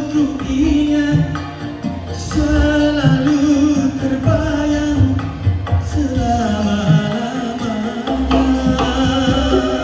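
A man singing into a microphone over a music track with a drum beat and strong bass, played through a Baretone MAX12HD active speaker with a 15-inch subwoofer.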